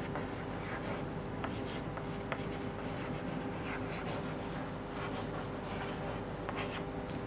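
Chalk scratching on a blackboard in short strokes as words are written by hand, over a steady low hum.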